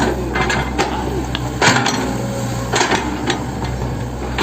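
Hitachi 110 M excavator's diesel engine running steadily, with a series of sharp metallic clanks and knocks from the machine at work, the loudest about one and a half seconds in.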